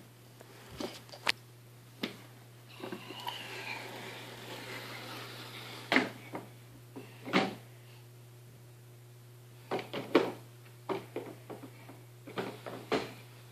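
A plastic ride-on toy car being pushed along by a toddler, giving scattered knocks and clatters at irregular intervals as it bumps and rattles.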